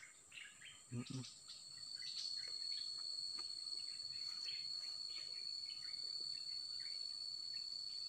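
A steady, high, unbroken insect trill starts about two seconds in and carries on, over another high insect drone and scattered short bird chirps in the forest undergrowth.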